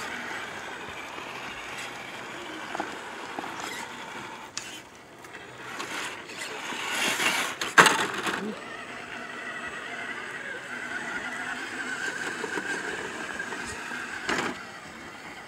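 Electric drive motors of RC rock crawlers whining as the trucks climb over rocks and dirt. The noise swells about halfway through and ends in a sharp knock as one truck tips onto its side against a boulder, and there is a short clatter near the end.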